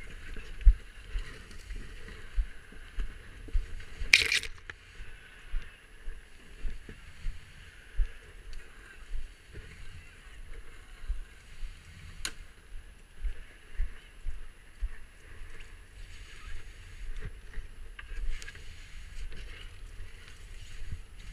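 A person's footsteps heard through a helmet camera while walking over rocky, scrubby ground, a steady run of low thumps a little under two a second. A steady hiss runs underneath, and there is a sharp click about four seconds in.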